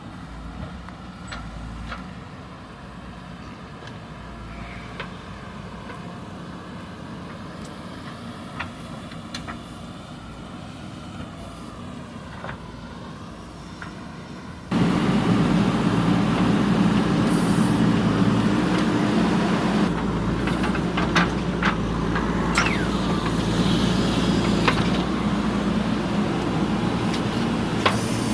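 JCB backhoe loader's diesel engine running steadily, suddenly much louder about halfway through, with occasional sharp clanks and knocks.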